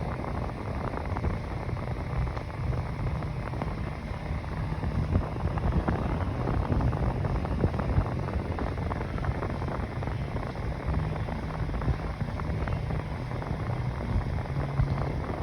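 Mainstays 9-inch box fan running on its high setting: a steady rush of air with a low motor hum underneath.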